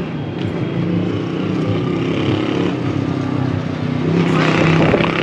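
A motor vehicle's engine running steadily, growing louder about four seconds in.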